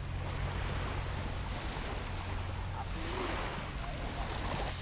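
Wind noise on the microphone over small waves washing onto a sandy beach: a steady, even hiss with a low rumble underneath.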